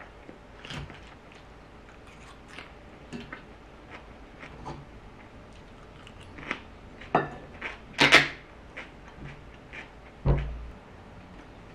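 Metal fork clinking and scraping against a bowl of salad, with chewing between the strokes; the loudest clinks come about two-thirds of the way in, and a dull knock on the table follows near the end.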